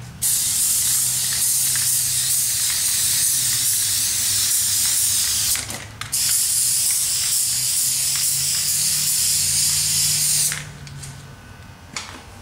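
Paint being sprayed in two long, steady hisses of about five and four seconds, with a short break between them, over a faint low hum.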